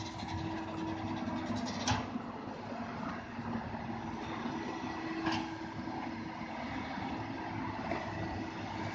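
Komatsu PC200 excavator's six-cylinder diesel engine running steadily as the machine digs and swings, with two sharp metallic clanks about two and five seconds in.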